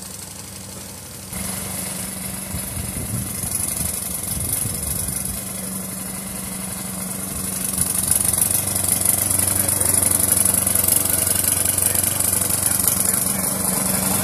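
Small gasoline engine of a remote-controlled lawn mower built on a walk-behind mower deck, running steadily with an even hum. It jumps louder about a second in and grows louder again from about eight seconds in as the mower comes closer.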